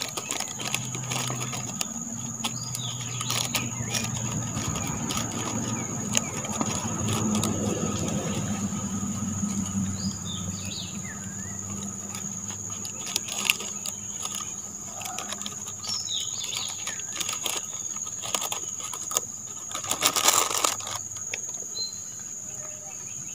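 Plastic bags crinkling with small clicks as pellet bait is handled and pressed onto a bomb hook rig, with a louder rustle near the end. Behind it, insects drone on one steady high note and birds give a few short chirping calls, with a low hum over the first half.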